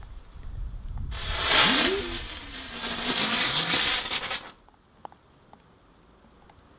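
Small firework hissing as it sprays sparks for about three and a half seconds, with a low tone rising and falling under it, then cutting off suddenly.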